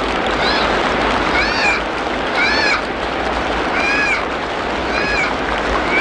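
Steady rain falling, with a bird repeating a short, arched, rising-then-falling call about once a second over it.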